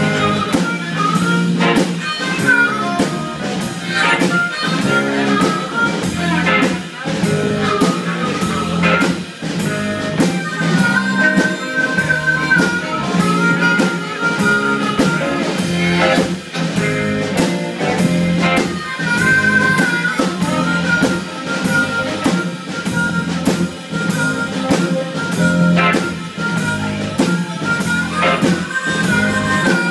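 Live electric blues band playing an instrumental stretch, led by a harmonica played into a vocal microphone, over electric guitar, bass guitar and a steady drum-kit beat.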